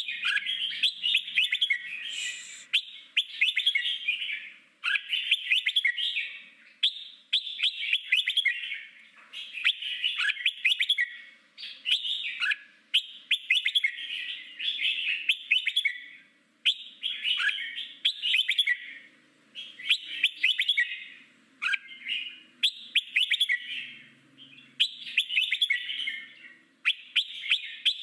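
Red-whiskered bulbul singing its wild-type song: short bright, chattering phrases repeated every one and a half to two seconds.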